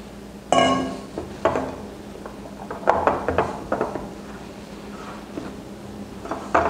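Silicone spatula stirring flour into a stiff potato dough in a glass bowl, knocking and scraping against the glass in irregular strokes, with a sharp ringing clink about half a second in. A faint steady hum runs underneath.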